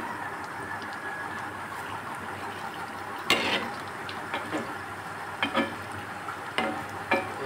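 Mango pakoras sizzling steadily as they deep-fry in hot oil in a metal kadai, with a perforated slotted spoon scraping and knocking against the pan several times, loudest about three seconds in.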